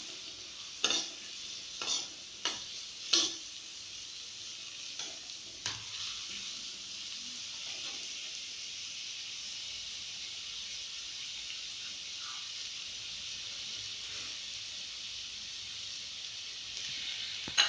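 Chopped onion sizzling steadily in hot oil in a kadhai, being sautéed until reddish-brown. A steel spoon scrapes and knocks against the pan several times in the first six seconds as the onion is stirred.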